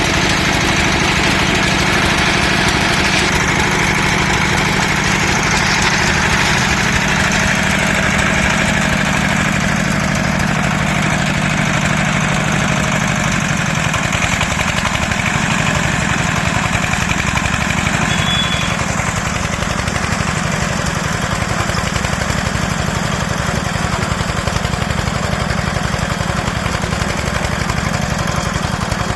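Concrete mini lift machine running with a steady engine drone.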